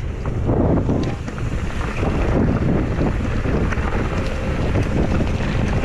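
Wind buffeting the microphone of a camera on a mountain bike ridden fast down a dirt trail, over the rumble of the tyres on rough ground and scattered small knocks from the Ibis Mojo HD4 bike.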